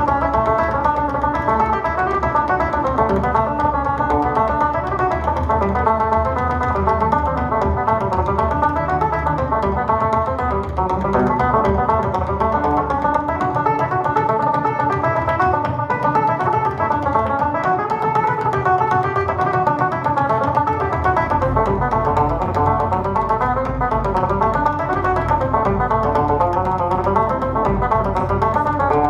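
Irish tenor banjo playing a fast reel, with a bodhrán frame drum keeping a driving beat underneath. The drum's low end grows fuller about two-thirds of the way through.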